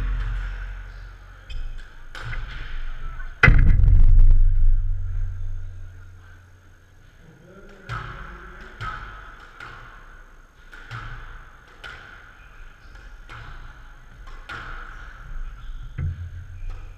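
Squash rally: the ball cracking off rackets and court walls in sharp hits, coming about once a second in the second half. A few seconds in there is one heavy thud, the loudest sound, followed by a low rumble that fades over about three seconds.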